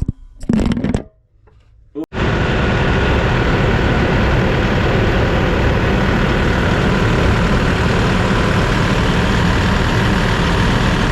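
Kioti TL750 tractor's diesel engine running steadily, cutting in abruptly about two seconds in after a brief bit of guitar music.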